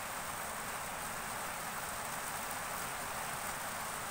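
Steady, even hiss of background noise, unchanging throughout, with no distinct events.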